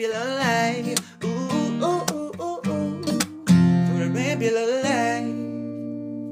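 Theme song with strummed acoustic guitar and a singing voice, ending on a held chord that slowly fades.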